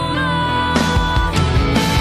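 Background music: a passage of held notes breaks into a rock section with drums about three quarters of a second in.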